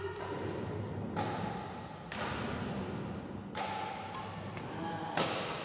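Badminton rackets striking a shuttlecock during a doubles rally, four sharp hits roughly a second or more apart, each echoing in a large hall.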